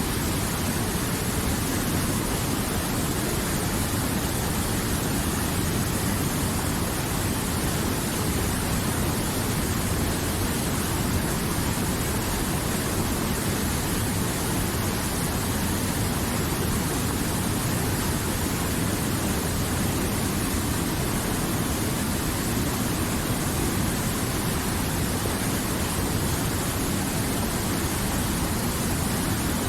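River water flowing, a steady, unchanging rush.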